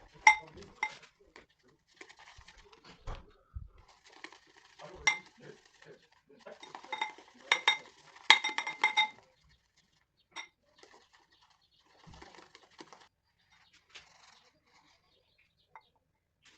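Light metallic clinks and taps with brief ringing, from shaving gear being handled, likely a double-edge safety razor and its blades. They come in small clusters, busiest between about seven and nine seconds in, with faint rustling between.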